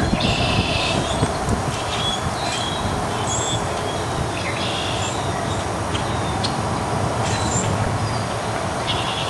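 Steady rumbling background noise, with short high chirps now and then.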